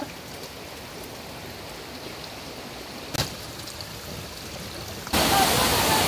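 Steady, faint trickle of water running over rocks, with one short knock about three seconds in. About five seconds in it gives way abruptly to the much louder rush of a rocky mountain stream.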